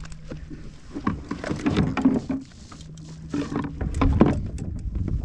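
Handling noise as a halibut is pushed into a bag on a fishing kayak: irregular rustling, scraping and knocks, in two busy spells about a second and about four seconds in.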